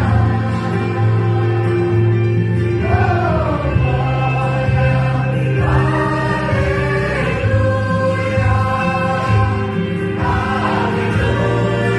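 A small vocal group singing a Christian worship song in harmony over instrumental backing, with sustained notes and steady bass.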